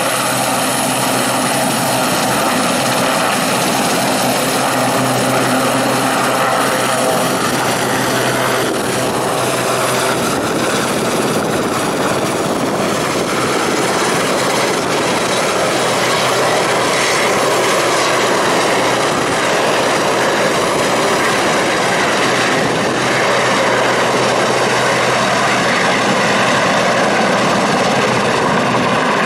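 Westland Sea King helicopter's turbine engines and main rotor running at high power as it lifts off and flies away, a loud steady whine and rotor noise that shifts a little about ten seconds in.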